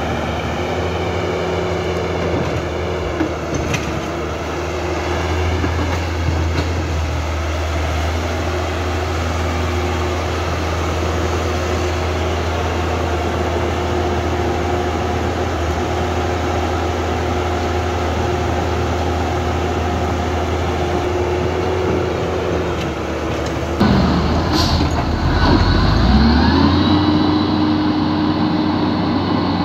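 Electric motors and gearboxes of a Huina 1550 remote-control toy excavator whining steadily, shifting in pitch as it works the sand. About 24 seconds in the sound changes and a motor whine rises in pitch, then holds.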